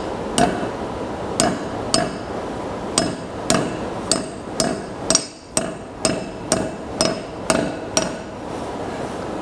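Claw hammer driving a steel wedge into the top of a sledgehammer's new wooden handle, seated in the eye of the 10-pound head: about a dozen ringing metal-on-metal strikes, roughly two a second, with a short pause a little past the middle.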